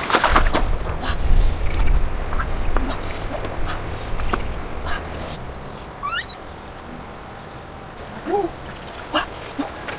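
Splashing and handling noise as catfish are grabbed by hand in shallow muddy water, with a heavy low rumble through the first few seconds. Later come a quick rising chirp about six seconds in and a few short calls near the end.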